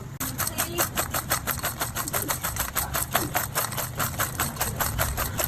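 Rapid, even strikes, about six a second, starting just after the start and keeping a steady rhythm over a low hum.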